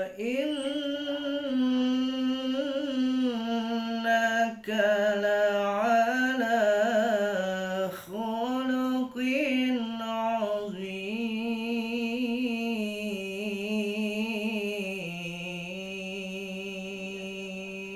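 A man's solo voice chanting Quran recitation in long, drawn-out melodic phrases, the held notes wavering with ornamented turns. A brief break comes about eight seconds in; the last part is one long, steadier held phrase that steps down slightly before it stops.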